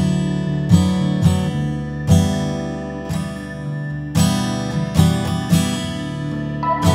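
Background music: strummed acoustic guitar in a steady rhythm, with a held higher note coming in near the end.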